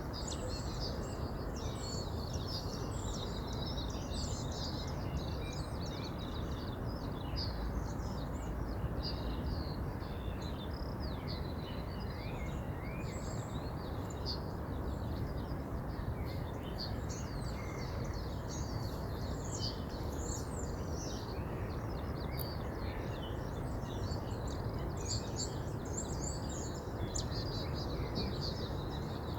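River water flowing steadily, with many small birds chirping and singing over it in a dense, unbroken chorus.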